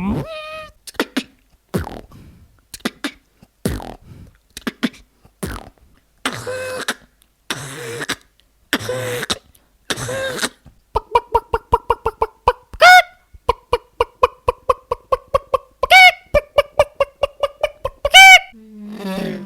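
Sound effects made with a man's mouth, beatbox-style: first a run of scattered clicks and pops, then four long hissing bursts of about a second each, then fast clicking under a hummed tone broken by three loud, short squeals.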